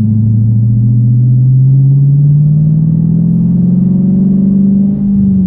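Straight-piped 2014 Dodge Challenger R/T's 5.7-litre HEMI V8, catalytic converters only with no muffler or resonator, heard from inside the cabin while driving. The exhaust note climbs slowly in pitch as the car gains speed, then holds steady.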